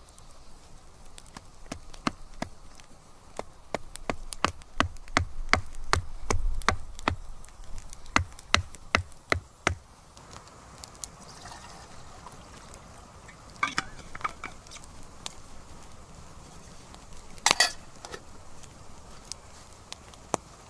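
Hatchet chopping a stick into kindling against a log: a quick run of sharp chops, a few a second, with heavier thuds in the middle. The chops stop, and later come a short clatter and one loud sharp knock.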